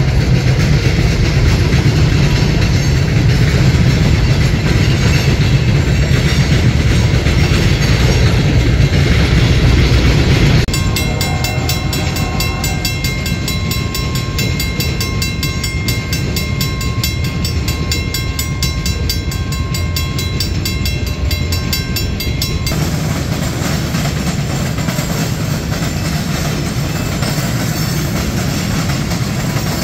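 Freight train passing: a steady heavy rumble with wheel and rail noise. The sound drops and changes abruptly about a third of the way in.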